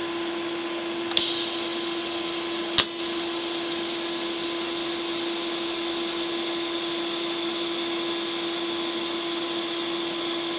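TIG welding arc at 90 amps fusing a line along a steel plate: a steady hiss with a constant hum, with a sharp click about a second in and another just under three seconds in.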